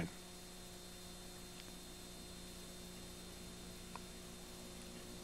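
Faint, steady electrical hum over a low hiss, with a faint tick about four seconds in.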